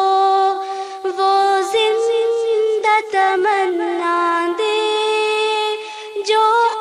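Background music: a single high voice singing without accompaniment, holding long notes and sliding between pitches in ornamented runs.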